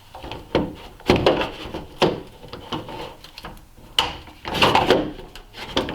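Irregular knocks, clatter and scraping of hand tools and metal parts being handled. The loudest bursts come about a second in and again near the end.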